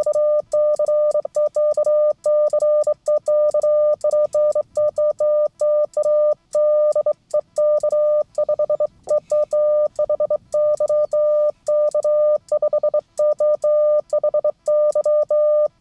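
Morse code (CW) sent on a WB9CYY bug emulator, heard as the radio's sidetone: one steady tone keyed on and off in runs of quick dits and longer dahs, with light clicks from the key.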